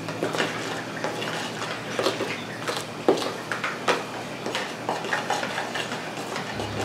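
Kitchen dishes and utensils clinking and knocking in irregular, short strikes, over a steady low hum.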